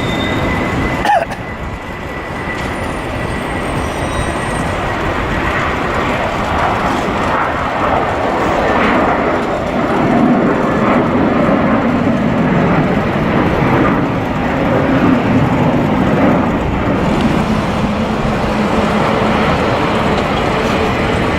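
Jet airliner engines: a broad, steady rumble that builds slowly and holds loud, after an abrupt cut with a brief falling whistle about a second in.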